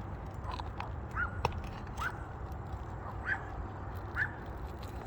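A bird calling over and over, short rising chirps about once a second, with a few sharp clicks mixed in.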